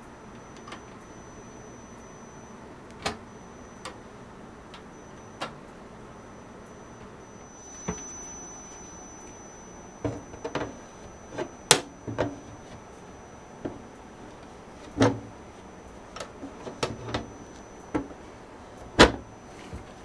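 Scattered clicks and knocks of a desktop PC case being closed up: the glass side panel being set back onto the NZXT case and pressed into place. The knocks come thicker in the second half, with the sharpest about twelve and nineteen seconds in.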